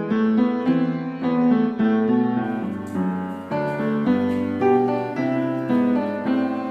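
Background piano music, a run of single notes and chords moving along at a steady pace.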